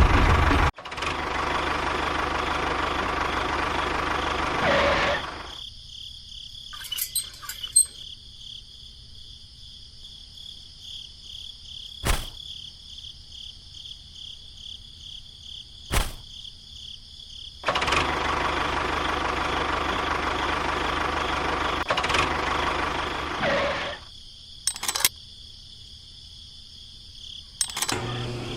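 Small motor of a miniature model bulldozer running in two spells of a few seconds each, starting and stopping abruptly, with a few sharp clicks between them. Crickets chirp steadily throughout.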